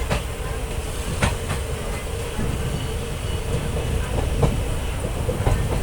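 Passenger train running on the rails: a steady low rumble of the wheels, with a few sharp clacks over rail joints, the clearest about a second in and again past four seconds.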